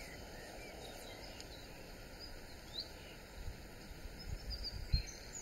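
Outdoor ambience of scattered faint bird chirps over a steady hiss, with low wind gusts buffeting the microphone that build through the second half.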